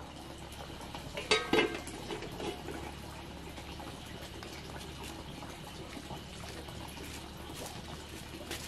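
A large pot of sticky-rice cakes boiling steadily over a wood fire, with a brief clatter about a second and a half in as the fire is tended.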